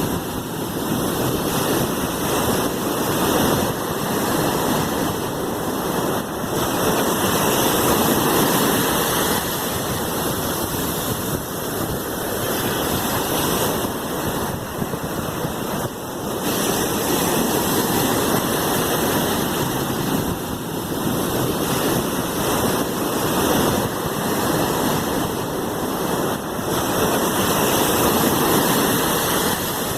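Sea waves: a continuous rushing wash of surf that slowly swells and eases.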